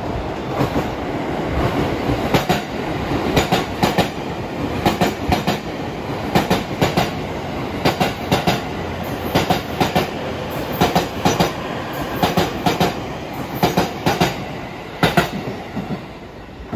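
Nine-car E257 series 2000 electric express train running through at speed, its wheels clacking over rail joints in tight groups about every second and a half, over a steady running rumble. The clacks stop shortly before the end as the last car passes.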